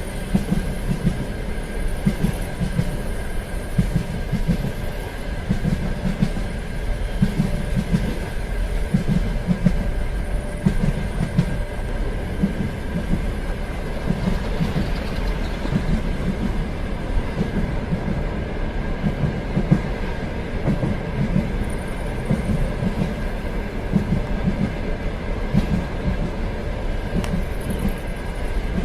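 A train running on rails: a steady rumble with the repeated low knocking of wheels passing over rail joints, and a faint steady whine.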